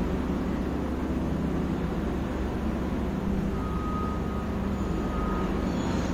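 Steady low rumbling hum, with a faint thin whistle-like tone for about two seconds in the second half.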